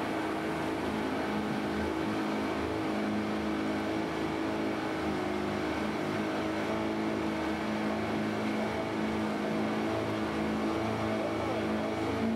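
Yamaha outboard motor running steadily at cruising speed, driving an aluminium skiff, with water rushing past the hull.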